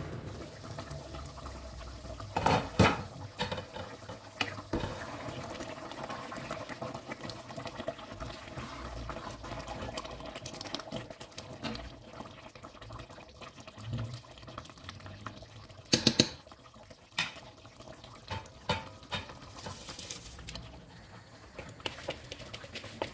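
A large pot of lamb and potato curry simmering. The glass lid clinks as it comes off, a wooden spoon stirs and knocks against the pot in several sharp knocks, and washed rice is tipped in near the end.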